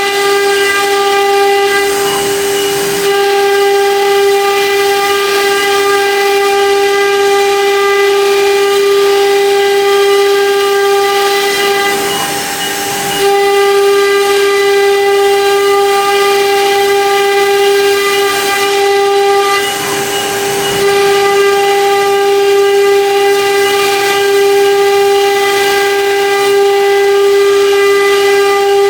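Spindle motors of a four-spindle CNC router running while 3D engraving, a loud, steady, high-pitched whine with a noisy cutting hiss beneath it. The whine dips briefly about twelve seconds in and again around twenty seconds.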